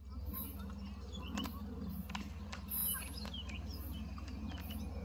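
Outdoor ambience: small birds chirping in short scattered calls and insects buzzing in short, very high bursts about once a second, over a steady low hum.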